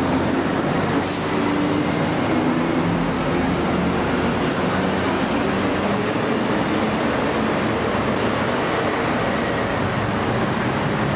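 Steady, busy road traffic: engines of buses and trucks running past, with a short hiss about a second in.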